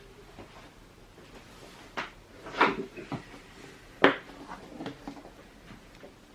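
Hand tools being handled and set down: a few sharp knocks and clatters, loudest about two and a half and four seconds in.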